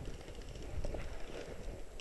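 Faint, irregular low thuds with light rustling, in an uneven step-like rhythm.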